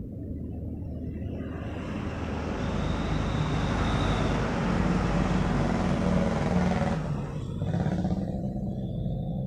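A road vehicle passing: its noise swells from about a second and a half in, holds for several seconds and fades away after about seven seconds, over a low steady drone.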